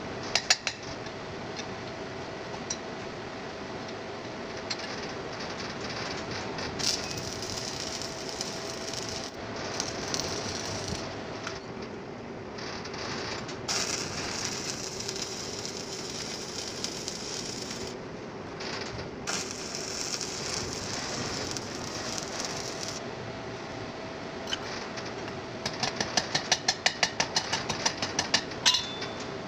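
Stick arc welding on a steel pipe: the arc crackles and sizzles steadily over a low hum. Near the end comes a quick run of sharp metal taps, about five a second, from a chipping hammer knocking slag off the fresh weld.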